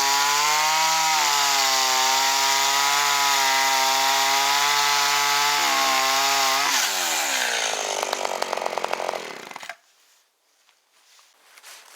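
Kyoritsu CS-362 two-stroke chainsaw engine running steadily, then switched off about seven seconds in. Its pitch falls as it winds down, and it stops at about ten seconds. It is running again after its faulty ignition coil was replaced and the coil core's gap to the flywheel was reset.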